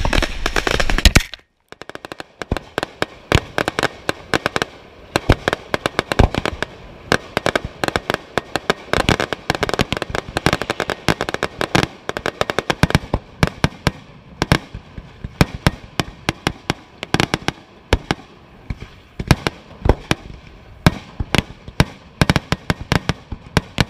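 Fireworks going off close by: a rapid, uneven string of sharp bangs and pops, several a second, after a short break near the start.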